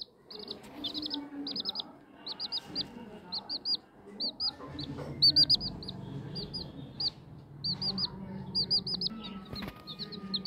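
Domestic chicken chicks peeping: high-pitched chirps that sweep downward, coming in quick runs of two to four, over and over. A single brief knock near the end.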